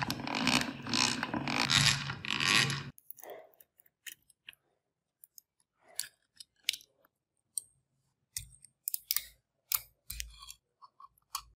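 A loud, rhythmic grating rasp for about the first three seconds, then sparse clicks and short scrapes of a small steel blade picking and scraping at flaking paint and rust on the antique hand drill's metal housing, with a few dull knocks near the end.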